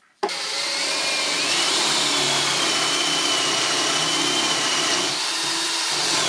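Cordless drill boring a 20 mm bench dog hole into a wooden workbench top through the UJK Parf Guide's bushing. It starts about a quarter second in and runs steadily under load, with a motor whine that rises slightly in pitch in the first two seconds, then holds.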